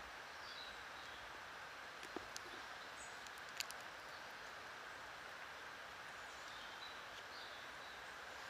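Quiet woodland ambience: a steady background hiss with faint, short bird chirps now and then and a couple of small clicks.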